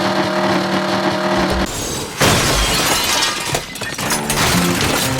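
A steady hum of a few held tones cuts off, and about two seconds in a loud crash with shattering and breaking sounds follows, trailing off over the next second. Music comes in near the end.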